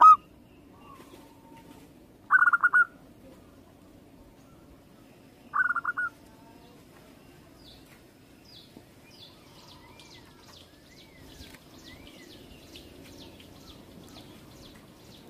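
Zebra dove (perkutut) cooing in short bursts of rapid pulsed coos, twice a few seconds apart. After that comes faint, fast, high chirping at about two notes a second.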